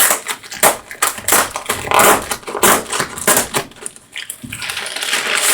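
Packaging being crumpled and crushed while it is pulled out of a box: a dense, irregular run of loud crackles and crunches, turning into a steadier rustle near the end.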